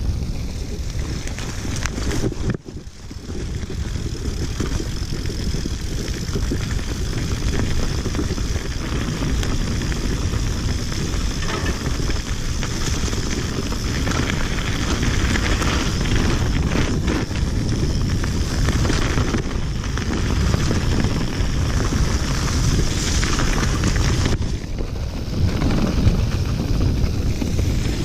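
Wind buffeting the action camera's microphone, mixed with the tyre rumble of a mountain bike riding along a trail. The noise is steady, with a brief drop about two and a half seconds in.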